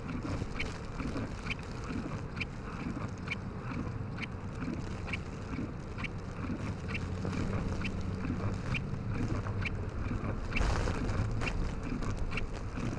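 A vehicle engine running steadily in strong wind, with a faint regular tick about twice a second. A louder rush of wind comes in about ten and a half seconds in.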